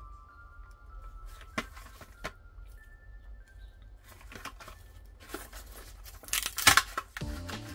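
A toy car's plastic blister pack being handled and torn open from its cardboard backing card: a few light clicks and crinkles, then a loud tearing rip of plastic and card about six and a half seconds in.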